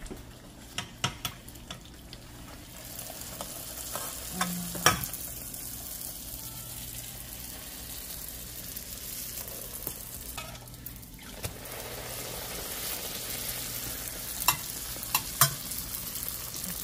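Fry bake dough frying in hot oil in a stainless steel skillet: a steady sizzle that builds about three seconds in and dips briefly just past the middle. A few sharp clicks of a metal utensil against the pan come through it.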